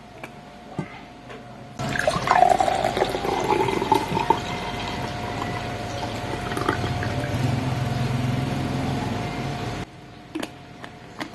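Milk pouring from a plastic bottle into a tall glass and filling it. The pour starts about two seconds in, runs steadily for around eight seconds, then stops.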